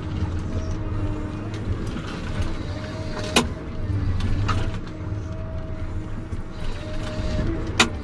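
Forestry harvester running under load as its head feeds a pine stem and saws it into logs: a steady machine drone with a tone that wavers slightly in pitch. Two sharp cracks, one about halfway through and one near the end.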